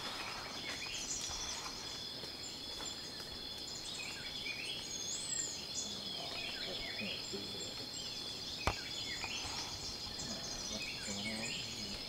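Forest ambience: a steady high-pitched insect drone with frequent short bird chirps and a whistled call. One sharp click about nine seconds in.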